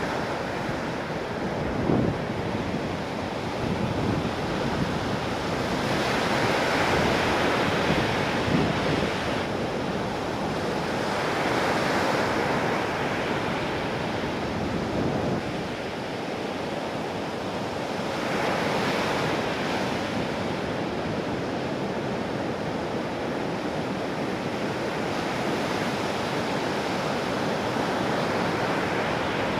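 Ocean surf from a large typhoon swell breaking in repeated waves, with wind buffeting the microphone.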